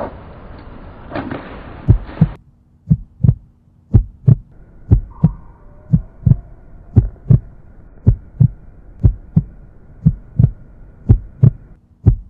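Heartbeat sound effect: pairs of low thumps, lub-dub, about once a second, beginning about two seconds in.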